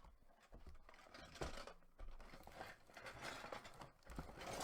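Rustling and crinkling of packaging and paper sheets as plastic model kit parts are handled, with a few light clicks.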